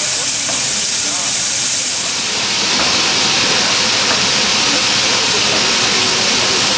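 Steam locomotive L-3055, a Soviet L-class 2-10-0, standing with steam escaping in a loud, steady hiss. The hiss drops a little in pitch about two seconds in.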